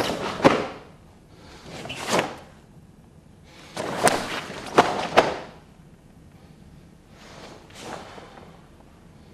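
Karate gis swishing and snapping, with sharp slaps and thuds of blocks and strikes, in four quick flurries separated by short pauses.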